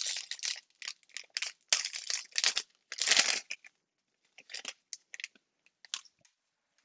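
A foil trading-card pack wrapper being torn open and crinkled in the hands: dense crackling tearing for the first few seconds, loudest about three seconds in, then a few lighter crinkles as the wrapper is pulled off the cards.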